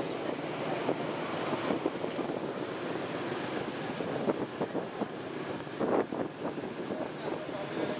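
Wind buffeting the microphone while riding on a moving motorbike, over the running noise of the bike and the motorbike traffic around it, in uneven gusts.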